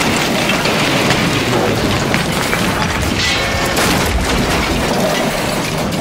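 Train-wreck sound effect: a continuous crashing, crunching clatter of derailing railcars piling up, with a brief metallic screech about three seconds in.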